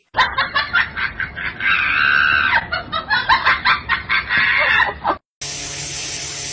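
A rapid series of short animal calls with one longer held call about two seconds in, stopping abruptly just after five seconds. A steady hiss of water spraying follows.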